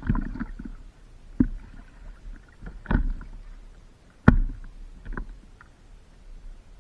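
Paddling on a stand-up paddleboard: a sharp splash or knock from the paddle and water against the board about every one and a half seconds, the loudest about four seconds in, over a low rumble of water.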